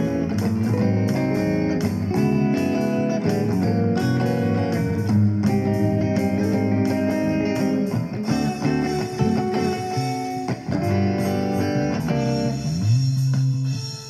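Guitar music: plucked and strummed chords that change every second or so, over a low bass line.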